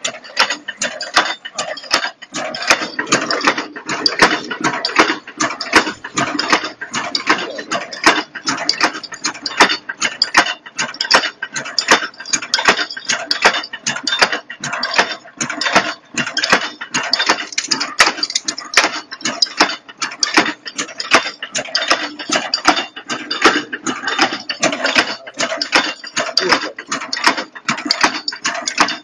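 Steel strapping seal making machine running, feeding steel strip and punching and forming seals in a steady, fast clatter of about four strokes a second.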